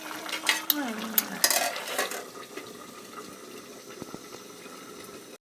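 Pot of matoke (green cooking bananas) boiling with a steady bubbling hiss, with a few sharp metal clinks in the first second and a half.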